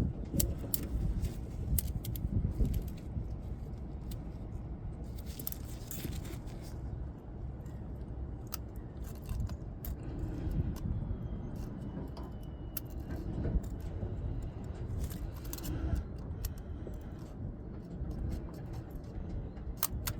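Light metallic clicks and clinks of a feeler gauge set being handled and its blades tried in the distributor's contact-breaker points, over a steady low rumble.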